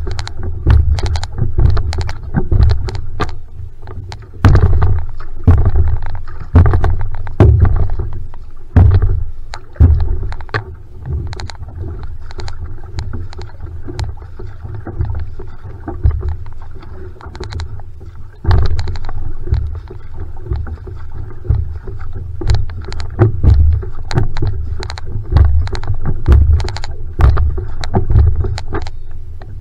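One-person outrigger canoe (va'a) paddled hard: the paddle blade splashes into the water and pulls through at about one stroke a second, over a heavy low rumble. The strokes soften for a few seconds in the middle, then pick up again.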